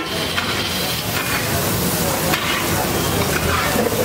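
Metal spatula repeatedly scraping and turning scrambled egg on a large flat griddle, over a steady sizzle of frying.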